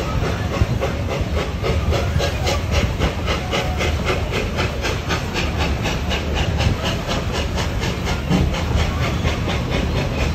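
Puffin Billy narrow-gauge steam locomotive working past, its exhaust chuffing at about five beats a second over the low rumble of the train.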